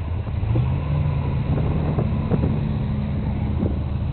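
Jeep Wrangler engine running at low, steady revs while driving over rough off-road ground, its pitch edging up slightly in the first second, with a few faint knocks and rattles from the vehicle.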